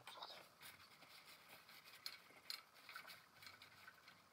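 Faint, scattered rustling and light clicks of paper towel and small parts being handled while the record changer deck is wiped clean.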